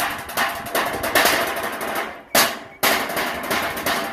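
Fast, steady drumming on a wooden box drum, the beat for a Samoan fire knife dance. About two seconds in the beat stops for a moment, is broken by a single loud strike, and then picks up again.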